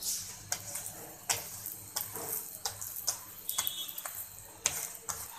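Paratha frying on a flat griddle, its oil sizzling with a steady hiss, while a metal spatula presses and scrapes against it in sharp scrapes and taps at irregular intervals.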